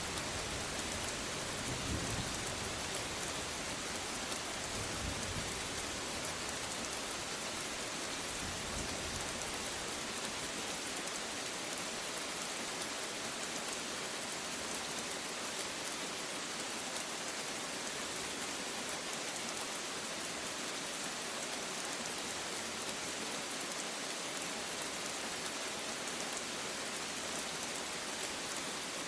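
Steady rain falling, with a low rumble of distant thunder in the first few seconds that fades out about a third of the way in.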